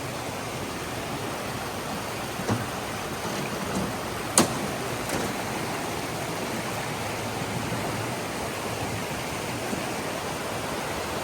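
Steady rush of flowing water, a stream or the waterfall's torrent. A sharp click about four seconds in, and a fainter one before it.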